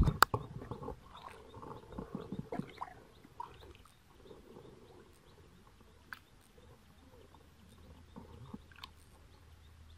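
Hands groping and squelching in shallow mud and water, with soft scattered sloshing and sucking sounds. A sharp click sounds just after the start, and the sounds thin out to faint occasional wet clicks after a few seconds.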